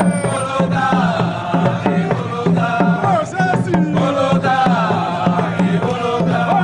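A group of men singing together in a Malawian call-and-dance song, over a large cylindrical drum beaten with a stick at a steady pulse of about two beats a second.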